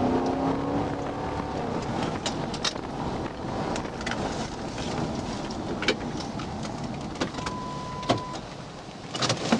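Patrol car driving on a wet highway: steady road and tyre noise with the engine note rising at first, a few sharp clicks, and a brief steady beep about seven and a half seconds in. The noise falls away near the end as the car slows.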